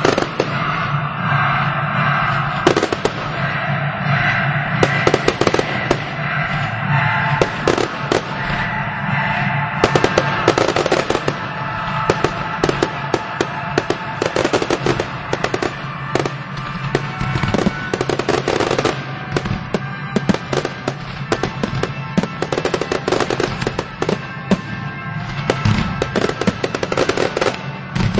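Fireworks finale: a dense, rapid barrage of aerial shell bangs and crackling, many per second without let-up, over music.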